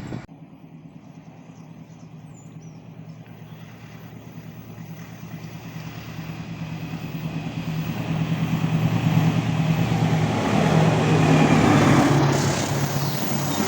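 A train approaching at speed, its steady low hum and running noise growing louder over several seconds and loudest near the end.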